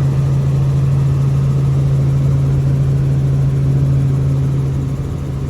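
Helicopter in flight heard from inside the cabin: a loud, steady low drone that eases off slightly near the end.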